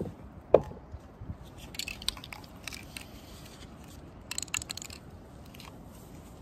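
Handling noise from an aerosol spray paint can and clear plastic gloves: a sharp knock about half a second in, then two short spells of clicking and crinkling, one about two seconds in and one just past four seconds.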